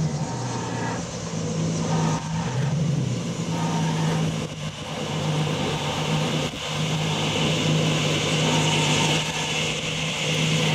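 A car driving at a steady low speed: a steady engine note, dipping briefly about three seconds in, over road and wind noise.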